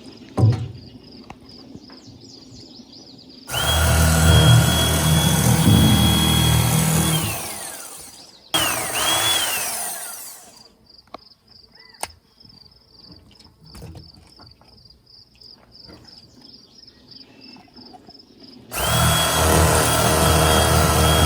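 A small handheld electric motor tool running in bursts: a whine starts abruptly about three and a half seconds in, runs about four seconds and winds down with a falling pitch, a shorter burst follows around eight and a half seconds, and a third starts near the end. A sharp knock comes just after the start.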